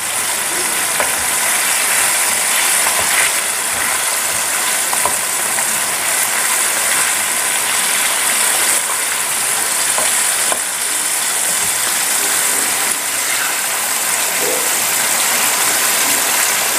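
Flour-coated chicken pieces deep-frying in a pan of hot oil: a steady, dense sizzle and crackle, with a few faint clicks as the pieces are turned over with tongs.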